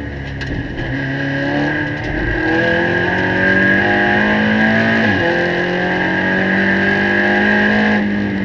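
SEAT Leon Cup Racer's turbocharged four-cylinder engine, heard from inside the cabin, accelerating hard at full throttle. The pitch climbs for about five seconds, drops sharply with an upshift, then climbs again, over a steady high whine. Near the end the sound falls away as the throttle is lifted.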